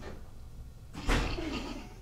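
A sudden burst of laughter from a small group about a second in, starting with a thump, then fading.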